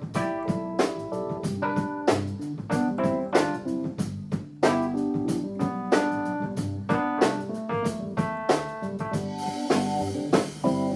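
Live band playing an instrumental passage: electric keyboard and electric guitar over a steady drum-kit beat, with no vocals.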